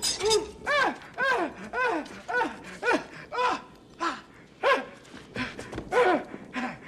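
A man screaming in short, repeated yelps, about two a second, each rising then falling in pitch: panicked cries of a man whose hat is on fire.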